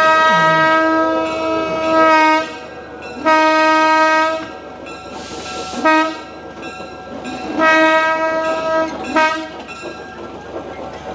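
Air horn of a GE 25-ton diesel locomotive blowing five loud blasts: long, long, short, long, then a brief one. A short burst of hiss comes in the gap near the middle.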